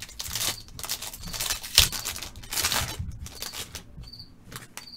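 Crinkling and rustling of a foil trading-card pack being torn open and the cards handled, with a sharp click about two seconds in; the handling quietens toward the end.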